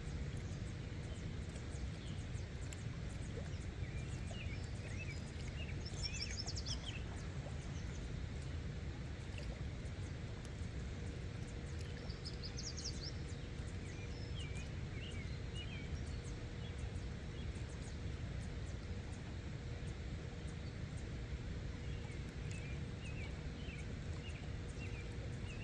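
Outdoor ambience at a waterside at night: a steady low rumble with scattered short, high chirps and trills from small animals, in small clusters about a quarter of the way through, around halfway, and near the end.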